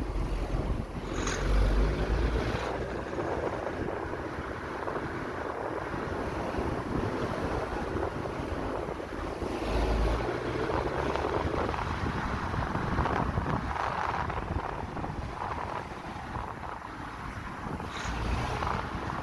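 2008 Vauxhall Zafira running, a steady noisy rumble with wind buffeting the microphone in low swells three times. This is a car with a tapping, knocking noise.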